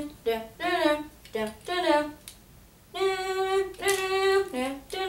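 A child singing a wordless tune: short phrases of sliding notes, then two long held notes past the middle.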